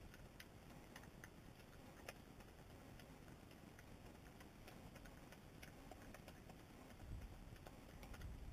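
Faint, irregular clicks of a European badger licking and chewing peanut butter off a stone step.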